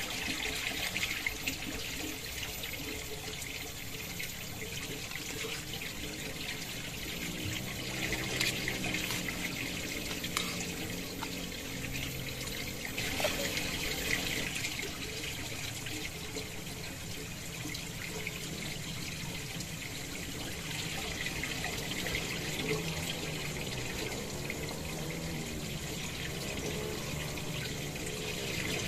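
Steady rush of running water, as from a forest stream, with a few light clinks of metal utensils.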